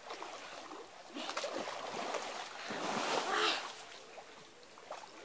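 Splashing of people wading and running through shallow lake water, with louder splashes about a second in and again around three seconds in.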